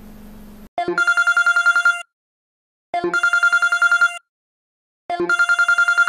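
Telephone ringing: three rings of a fast-trilling electronic ring tone at one steady pitch, each lasting about a second, about two seconds apart. A quiet steady low hum plays just before the first ring.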